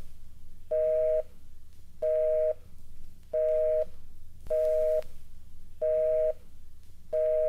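Telephone busy signal: a two-tone beep, about half a second long, repeating about every 1.3 seconds over a faint low line hum.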